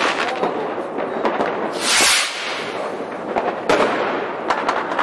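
Aerial fireworks going off: several sharp bangs and pops over steady crackling, with a louder hissing burst about two seconds in.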